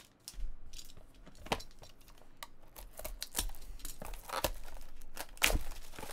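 Clear plastic shrink wrap crinkling and tearing as it is pulled off a trading-card hobby box, in a run of sharp, irregular crackles, the loudest about five and a half seconds in.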